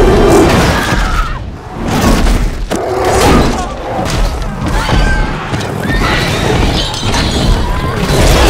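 Film battle sound mix: heavy crashes and booms over a deep rumble, with orchestral score and scattered cries. It starts abruptly and loud.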